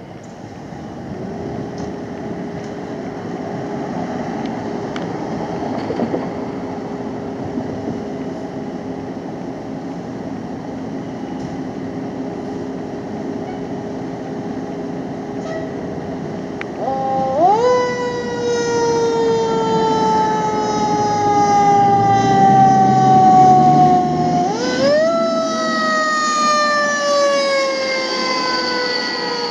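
Fire truck's diesel engine running steadily, then its mechanical siren wound up twice, about 17 and 24 seconds in, each time rising quickly and winding slowly down as the truck pulls out.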